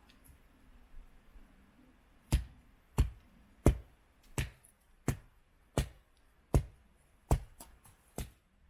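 A regular series of about ten sharp chopping strikes, roughly three every two seconds, starting a little over two seconds in: wood being chopped.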